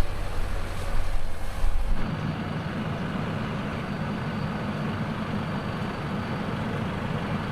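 Mercedes-Benz Unimog off-road truck driving, its engine running steadily. A deeper rumble in the first two seconds cuts off abruptly about two seconds in, and a steadier engine sound follows.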